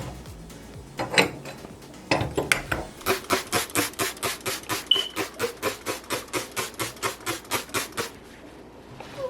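A few knocks, then a fast, even run of hand scrubbing strokes, about four or five a second, that stops about a second before the end.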